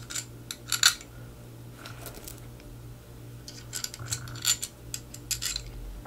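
Small metal screws and a screwdriver tip clicking against the metal lens-mount cover as the screws are set into their holes and turned in. The clicks come in small clusters, busiest near the start and again past the middle.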